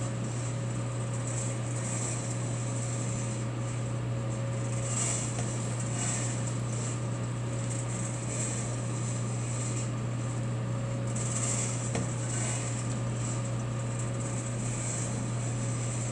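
Hot-air coffee sample roaster running steadily about two minutes into roasting a 125 g batch of green beans: a constant low hum from the fan and motor under a rushing of hot air that swells and eases slightly.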